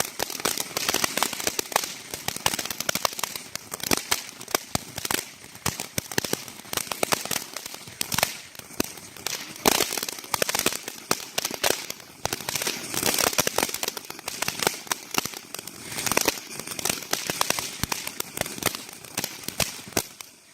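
Consumer firework crackling and popping continuously, a dense, irregular run of sharp snaps that dies away at the very end.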